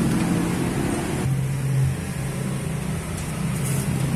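A motor vehicle's engine running close by, a steady low hum whose pitch drops about a second in.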